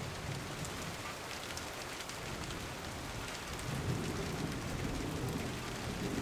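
Steady rain with scattered drop ticks, and a low rumble of thunder that swells about three and a half seconds in.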